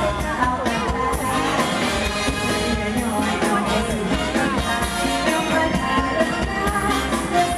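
Live mor lam band music, an Isan folk-pop stage band, with a steady drum beat and a woman singing.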